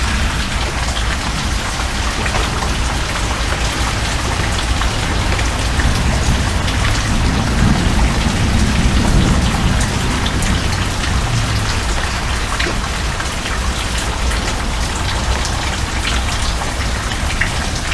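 Heavy rain falling steadily, a dense hiss with many sharp ticks of single drops striking. A low rumble swells and fades around the middle.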